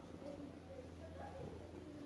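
Small kitten making a faint, wavering vocal sound while it eats, over a steady low hum.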